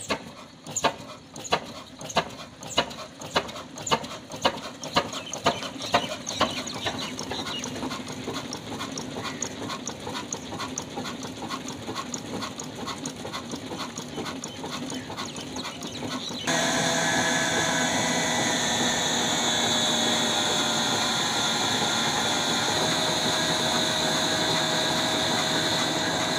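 Old 20 HP single-cylinder diesel engine with a heavy flywheel just started, its separate firing beats coming faster as it picks up speed, then settling into a steady quick beat. About two thirds of the way in the sound changes abruptly to a louder steady running noise with a steady whine, as the engine drives the small belt-driven flour mill.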